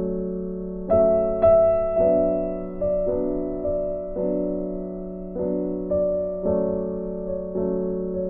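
Background piano music: slow, gentle notes and chords, a new one struck about every second and left to fade.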